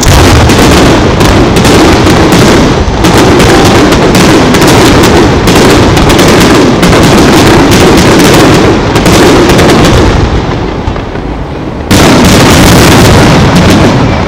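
Aerial fireworks shells bursting in a rapid barrage: a dense, very loud run of booms and crackles. It eases about ten seconds in, then a fresh loud volley breaks out about two seconds later.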